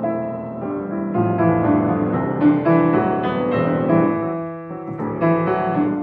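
Instrumental piano music, a run of single struck notes over sustained chords.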